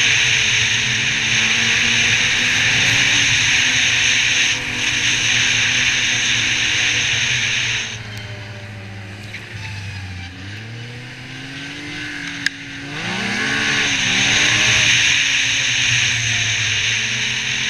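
Yamaha Viper XTX snowmobile's three-cylinder four-stroke engine running along the trail under throttle, with a strong hiss. About eight seconds in the throttle eases off and the engine note falls as the sled coasts, a single sharp click comes around twelve seconds, and about a second later it accelerates again with a rising note, easing off once more near the end.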